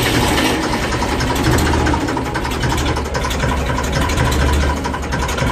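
Tractor engine idling steadily with a low rumble, just after being started.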